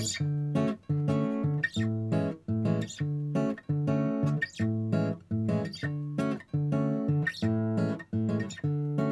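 Background music: a strummed acoustic guitar playing a steady, rhythmic chord pattern.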